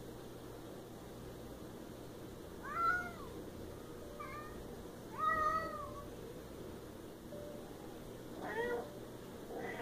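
Siamese cat meowing: about five separate calls, each rising then falling in pitch, the longest and loudest one around the middle.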